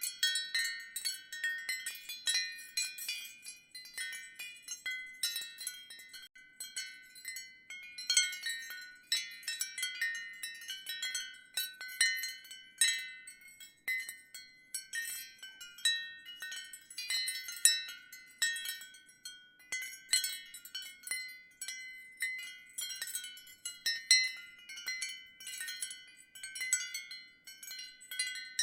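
Ceramic wind chimes tinkling lightly in the breeze: high clinking tones struck irregularly, several times a second, each ringing on briefly.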